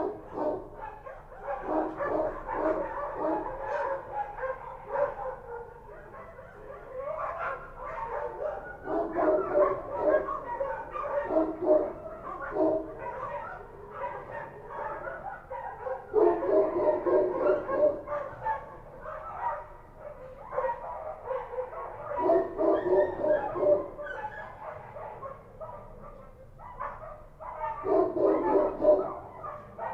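Several street dogs barking, many barks overlapping, in bouts of a few seconds separated by brief lulls.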